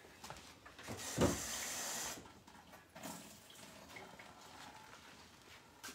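Kitchen tap running for about a second, as water is measured out, followed by faint handling sounds.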